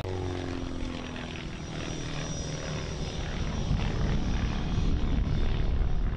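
Aerobatic biplane's piston engine and propeller droning, its pitch falling over the first second or so as it passes, then a low drone that grows louder from about halfway through.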